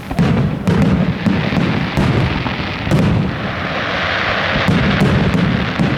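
Aerial fireworks shells bursting one after another in loud, sharp bangs with low rumbling between them, and a stretch of hissing crackle in the middle.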